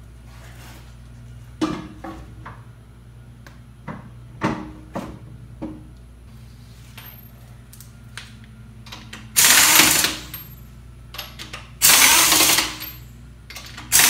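Pneumatic impact wrench hammering lug nuts onto a wheel in two loud bursts of about a second each in the second half, with a third starting right at the end. Earlier, a few sharp knocks and clinks of the wheel and lug nuts being handled.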